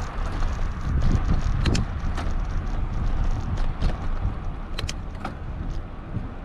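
Wind rumbling on the microphone while riding a bicycle, with scattered sharp clicks and rattles from the bike and its towed child trailer.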